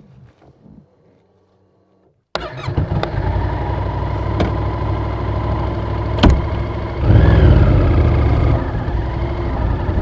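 Yamaha XSR700's parallel-twin engine starting up about two seconds in and settling into a steady idle, with a short throttle blip about seven seconds in. A few sharp clicks sound over the idle.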